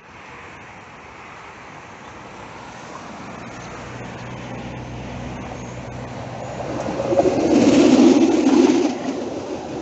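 A Konstal 105N-series tram approaching and passing close by, its running noise building slowly with a low steady hum, then peaking in a loud rumble of wheels on rail as it goes past about eight seconds in.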